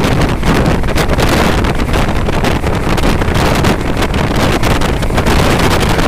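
Wind rushing and buffeting the microphone from a moving train, over the train's steady running rumble; loud, with an irregular gusty flutter.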